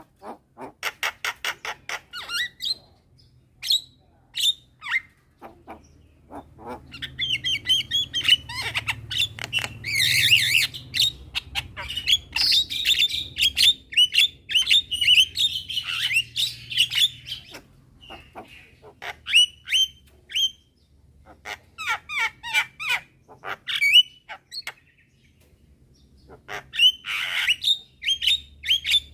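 Several Javan mynas calling: quick runs of sharp chirps and down-slurred whistles mixed with harsh squawks and chatter, densest and overlapping in the middle, with another harsh call near the end.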